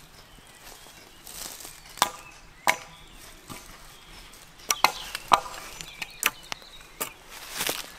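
Hatchet chopping at a long, thin green sapling pole, trimming off its side branches. About seven sharp, irregular blows start about two seconds in, some with a short ringing knock.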